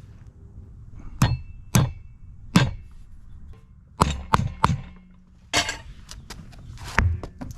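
Wheel balance weight being hammered back onto a tire rim: about nine sharp metal-on-metal strikes, irregularly spaced, some in quick pairs and triples.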